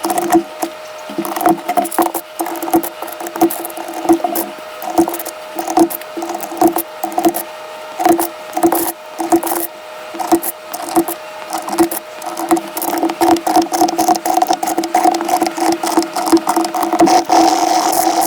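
Rapid, irregular plastic clicking and clacking from a mechanical keyboard's switches being pressed and handled, with a steady tone underneath.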